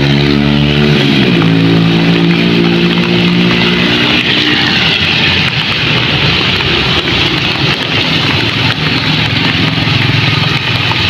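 A motorbike engine passing close on a wet road: its pitch drops as it goes by about a second in, and it fades over the next few seconds. Then comes a steady hiss of tyres on the wet street, with another motorbike coming by near the end.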